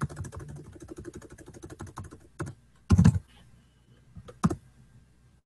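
Fast typing on a computer keyboard, a quick run of keystrokes that stops about two and a half seconds in. One louder thump follows, then a few scattered key clicks.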